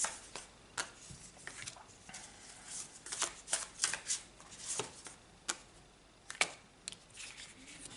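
Tarot cards being shuffled and handled, with irregular quick flicks and snaps of the cards.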